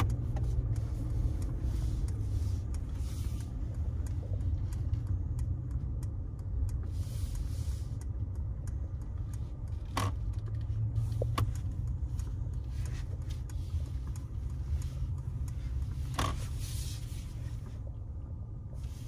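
Steady low rumble of road and running noise inside the cabin of a 2021 Mercedes-Benz S-Class on the move, with a few sharp isolated clicks, two close together about halfway through and one more later.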